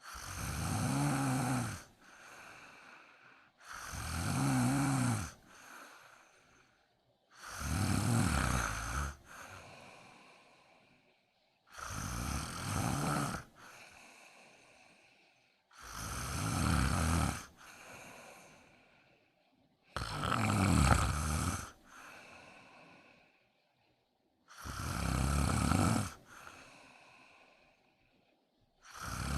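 A woman snoring in her sleep: a long snore roughly every four seconds, each followed by a short faint breath, with a new snore starting right at the end.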